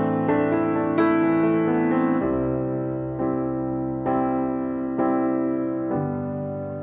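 Background music: a piano or electric-piano piece with gentle chords struck about once a second, each fading before the next.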